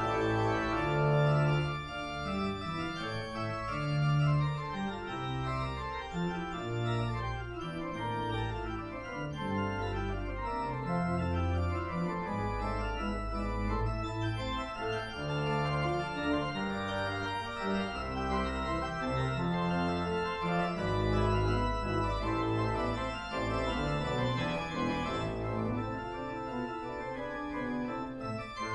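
Church organ playing Baroque counterpoint: held pedal bass notes under several fast-moving upper voices, with running scale passages.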